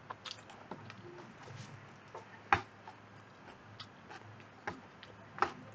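Faint, scattered clicks of a computer mouse and small desk handling noises, irregular and a second or so apart, the sharpest about halfway through and near the end, over a faint low hum.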